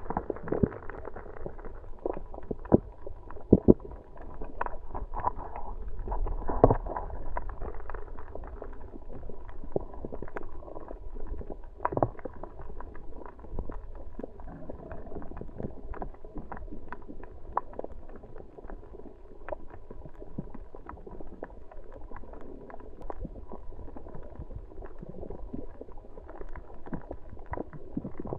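Muffled underwater sound picked up by a camera in its housing: a low, steady wash of water with many scattered sharp clicks and crackles.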